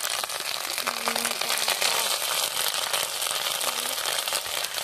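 Food frying in hot oil in a pan, a steady crackling sizzle.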